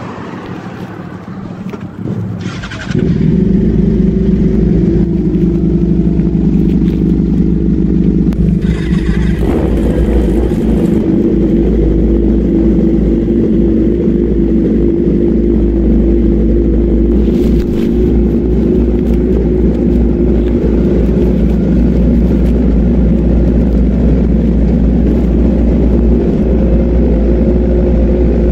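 Suzuki GSX-R1000 inline-four engine running steadily at an even pitch, loud and close, coming in abruptly about three seconds in after a quieter stretch.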